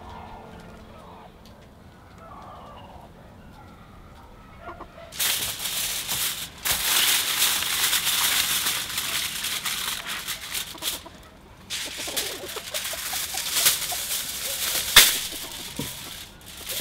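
Aluminium foil crinkling as it is stretched over a round baking pan and pressed around the rim. It starts about five seconds in, pauses briefly partway through, and has one sharp crackle near the end.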